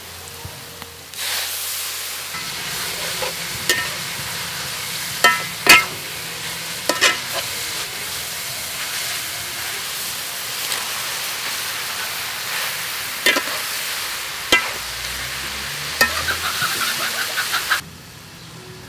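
Shredded vegetables sizzling in a hot wok as they are stir-fried. A spatula knocks and scrapes against the pan now and then, with a quick run of scrapes near the end, and the sizzle cuts off suddenly just before the end.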